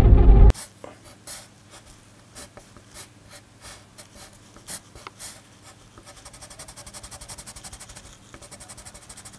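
A brief loud low rumble that cuts off abruptly half a second in, then a coloured pencil scratching on paper: separate strokes drawing lines, then rapid back-and-forth shading strokes from about six seconds in.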